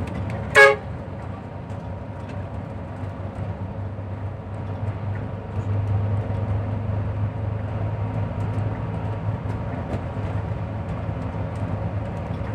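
One short horn toot about half a second in, the loudest sound, over the steady low drone of a moving bus's engine and road noise, which grows somewhat louder about halfway through.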